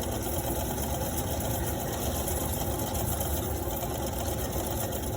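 Steady low rumble of a running vehicle, even throughout.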